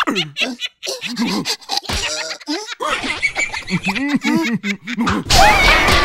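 Cartoon characters' wordless gibberish voices and laughter. About five seconds in, a loud rushing whoosh effect cuts in as a character dashes off.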